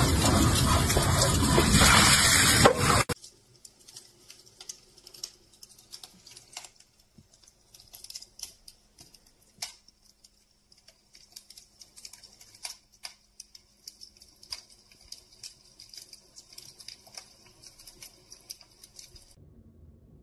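Water pouring from a bamboo spout onto rocks into a pool, cutting off suddenly about three seconds in. Then a wood fire burning with faint, irregular crackles and pops.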